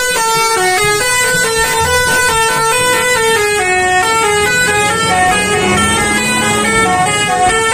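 Multi-tone 'telolet' bus horn playing a quick tune of changing notes.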